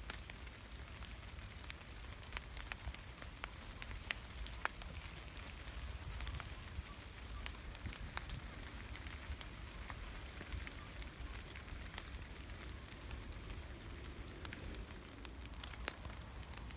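Gentle forest rain: a steady hiss of rainfall with frequent sharp, scattered drip ticks from individual drops, over a low steady rumble.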